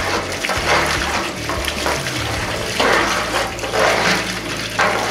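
Sandy water gushing out of the open drain-plug hole at the bottom of a galvanized well pressure tank and splashing onto a concrete slab, surging unevenly as a PVC pipe stirs the sediment inside. The well pump is running and flushing the sand out through the hole.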